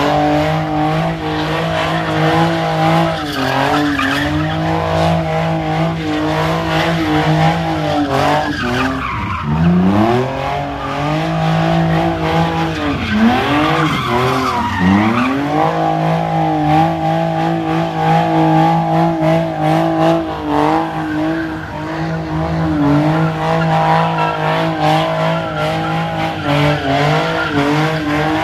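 Nissan 350Z doing donuts, its engine held high in the revs while the spinning rear tyres screech. Around the middle the engine pitch dips and climbs back several times as the throttle is lifted and reapplied, then it holds steady again.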